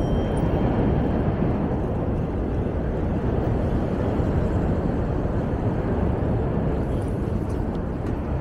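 Steady rush of city street traffic heard from a moving bicycle, mixed with wind noise on the microphone.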